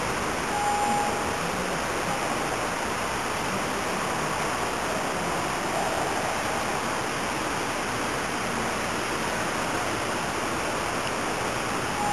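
Steady, even rushing hiss at a constant level, with a short faint tone about half a second in.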